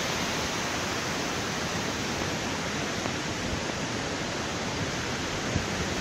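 Steady, even rush of running water from the river and its nearby waterfalls.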